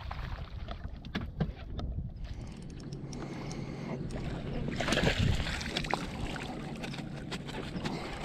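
Wind buffeting the microphone and water lapping at a small fishing boat, with scattered clicks and knocks of rod, reel and net handling. About five seconds in there is a louder splash as a hooked bass is scooped into a landing net.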